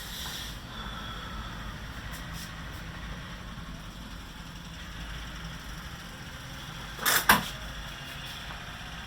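Steady low hum of room noise; about seven seconds in, two sharp knocks in quick succession, the loudest sounds here.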